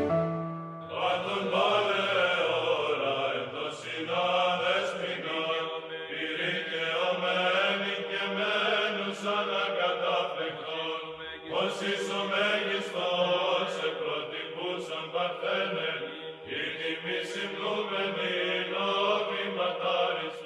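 Orthodox church chant, with singing voices moving over a steady low held note. It takes over from softer music about a second in and fades away at the very end.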